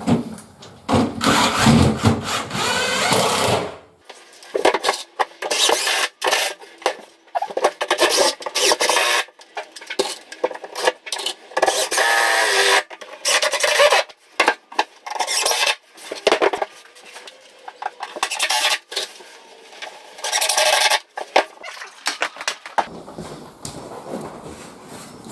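Cordless drill driving screws into the wooden bed platform, in many short runs with brief stops between them. The runs stop a little before the end, giving way to a duller, lower sound.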